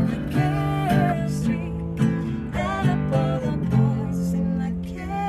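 Acoustic guitar strummed with a man and a woman singing. About four seconds in, a last strummed chord is left ringing while the voice carries on.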